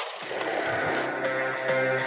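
Background music: a song starts and builds.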